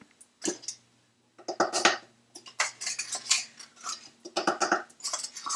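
A metal can of coconut cream knocking and clinking irregularly against the rim of a blender jar as it is tapped and shaken to empty the thick cream out.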